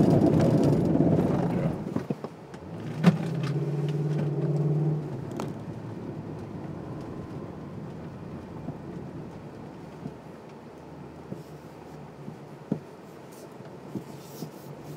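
Nissan Patrol's 5.6-litre V8 heard from inside the cabin as the SUV crawls over a dirt track: a loud rough rumble for about two seconds, a steady hum from about three to five seconds in, then a quieter low running sound with a few sharp knocks.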